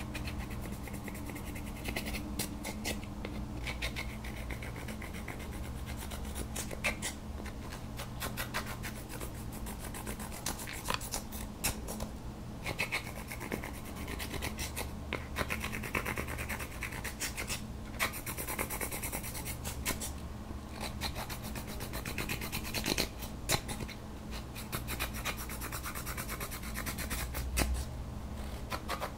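A plastic tool scraping pressed eyeshadow powder out of the pans of a palette: dry, scratchy rasping in runs of quick strokes with brief pauses between them.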